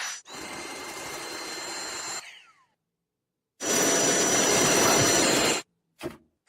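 Cordless vacuum cleaner motor running in short, cut-up stretches: a steady airy noise with a high whine that winds down after about two seconds. After a second of silence comes a louder two-second run that stops abruptly, then a brief blip near the end.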